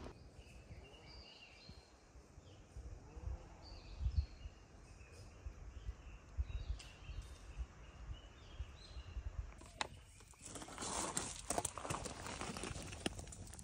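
Faint birdsong in woodland, with a few low rumbling bumps. About ten seconds in, a wood fire burning under a cast-iron pot on a grill starts crackling and popping with many sharp snaps.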